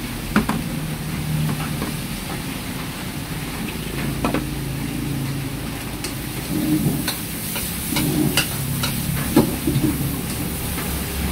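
Steady low roar of the strong flame under a wok, with food sizzling in the pan. A metal ladle knocks and scrapes against the wok now and then, most often in the second half as the wok is worked and tossed.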